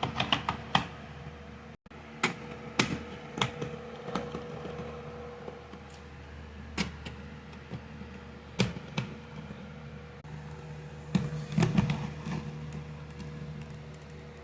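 Irregular clicks and knocks of plastic smoke alarms being handled and fitted onto a mounting board, over a faint steady hum.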